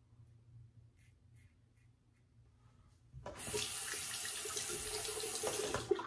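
Bathroom sink tap running into the basin for about three seconds, starting about three seconds in and cutting off sharply just before the end, as the razor and face are rinsed. Before it, a few faint scraping strokes of a safety razor on stubble.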